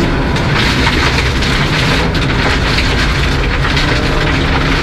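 A 1997 Mercedes-Benz C180 four-cylinder rally car running hard on a gravel stage, heard from inside the car: a steady engine drone through its custom 2.5-inch exhaust, with loose gravel rattling and pinging against the underside.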